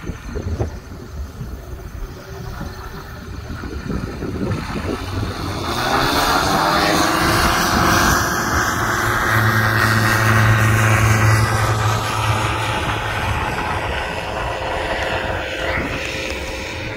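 Wind buffeting the microphone, then the engine and propeller of a weight-shift ultralight trike growing loud about five seconds in as it flies low past. The engine note rises slightly as it comes in, holds loudest through the middle, then slowly fades.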